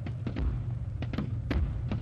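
Military vehicle engine running with a steady low rumble, under half a dozen irregular knocks and clanks in two seconds.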